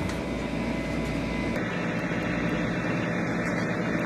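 Steady background noise with a low hum, changing abruptly in character about one and a half seconds in.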